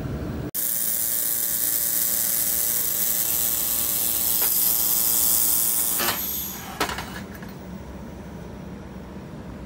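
Handheld fiber laser welder running on a steel plate: a steady buzzing hiss with crackling spatter that starts about half a second in and stops about six seconds in, followed by a couple of sharp clicks.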